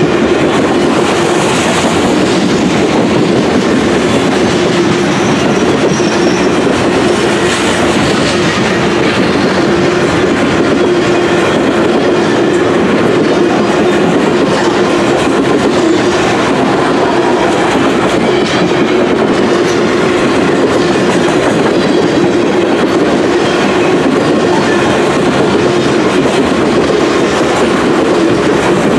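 Covered hopper cars of a long freight grain train rolling past close by: a steady, loud rumble of steel wheels on rail with clickety-clack over the rail joints and a steady hum through it.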